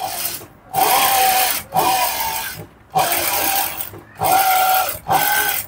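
Sewing machine stitching in five short runs of about a second each, with brief pauses between, a steady whine in each run and one run pitched higher.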